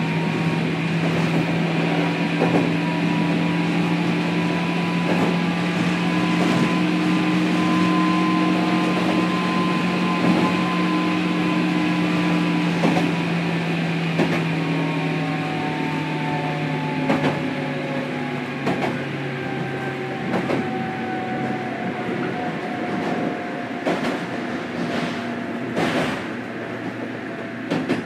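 Running sound heard inside a 103 series 1500-subtype electric train's motor car: the traction motors and gears whine at a steady pitch, then the whine slowly falls in pitch and level from about halfway as the train slows. Wheels click over rail joints now and then.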